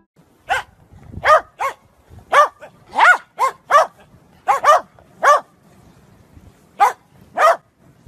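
Corgi barking about a dozen times in short, sharp barks at uneven intervals, some in quick pairs.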